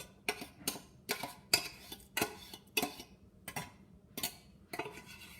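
A metal utensil knocking and scraping inside a tin can to get the canned tuna out into a bowl, with irregular sharp clinks about two a second.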